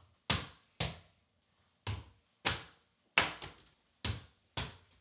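A small ball thrown repeatedly at a wall-mounted mini basketball hoop, knocking against the backboard and rim: about eight sharp knocks at uneven intervals, two of them coming close together just past the middle.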